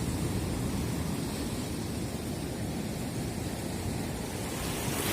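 Steady rumbling wind on the microphone over the wash of sea waves.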